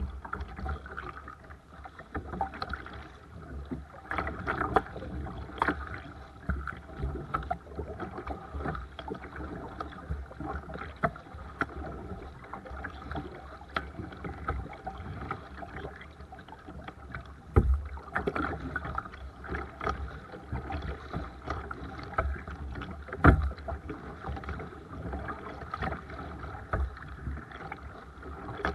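Paddling a Seabird Discovery kayak: water splashing and dripping off the paddle blades and swishing along the hull in an irregular patter. A few duller knocks stand out, the sharpest about 23 seconds in.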